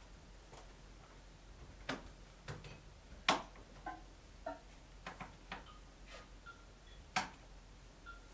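Sparse improvised live music from a bass-and-electronics setup: irregular clicks and taps with a few short pitched blips between them, the loudest clicks about three seconds in and again about seven seconds in.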